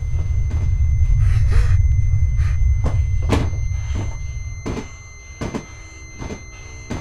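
A deep low rumble swells over the first few seconds and fades out about two-thirds through, with scattered sharp knocks and thuds over it.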